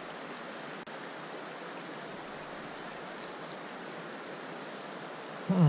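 Steady rush of flowing creek water, even and unbroken apart from a momentary dropout about a second in. Right at the end a man's low, drawn-out vocal sound begins.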